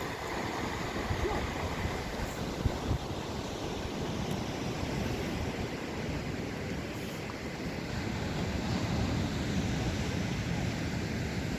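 Atlantic surf breaking and washing up a beach as a continuous rushing noise, swelling a little about eight seconds in, with wind buffeting the microphone.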